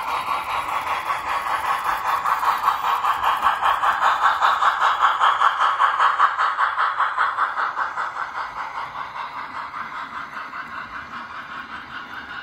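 HO-scale model train, a Big Boy steam locomotive hauling freight cars, running past on its track with an even rhythmic beat of about five a second. The sound swells to its loudest about halfway through, then fades as the train moves off.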